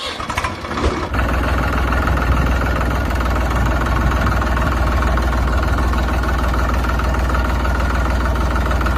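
Heavy vehicle engine sound effect running steadily, settling into an even low drone about a second in, as for a construction truck or digger.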